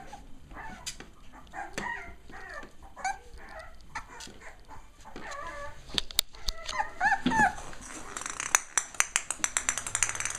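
Six-week-old Cavalier King Charles Spaniel puppies giving short high-pitched yips and whines as they play, with a fast run of sharp clicks in the last couple of seconds.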